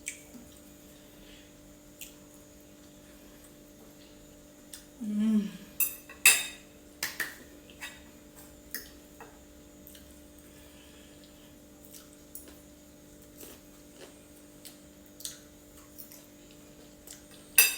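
Cutlery clinking and scraping against a plate while eating, in scattered light clicks that come thickest a few seconds in and again near the end. A brief hum of a voice about five seconds in.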